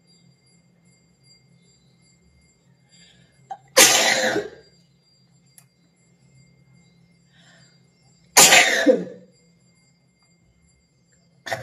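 A woman sneezing loudly twice, about four and a half seconds apart, each sneeze a sharp burst that dies away within a second, with a third beginning right at the end.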